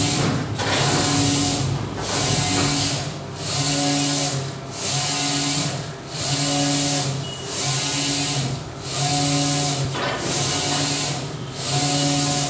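Large-format flex banner printer's print-head carriage sweeping back and forth across the sheet: a steady motor whirr that dips briefly at each reversal, roughly every second and a half.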